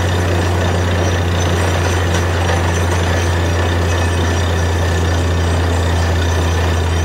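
Truck-mounted borewell drilling rig running steadily: a deep, unbroken engine hum under a constant rushing noise as mud and rock cuttings are blown out of the borehole while drilling.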